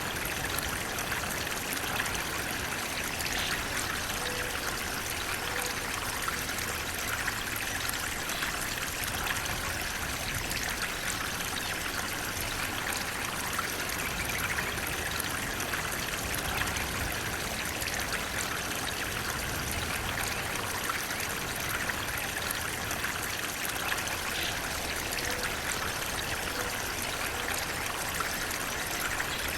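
Flowing water running steadily, an even stream-like rush with a trickling edge.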